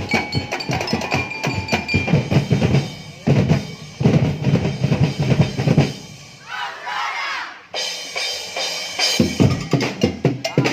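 Dance music with a heavy drum beat. About two-thirds in, the beat drops out for about a second under a wavering, swooping effect, then comes back.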